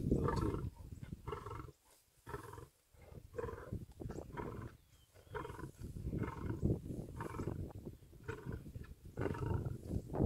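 Lions growling over a zebra kill while they feed, in repeated rough, low bursts with a couple of short pauses about two and three seconds in.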